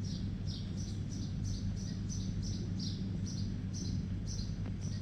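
A small bird chirping over and over, about two to three short chirps a second, over a steady low electrical hum.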